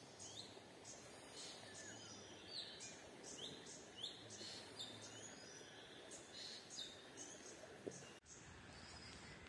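Faint birdsong in forest ambience: many short chirps and quick falling calls repeating a few times a second over a low, even hiss, with a brief dropout about eight seconds in.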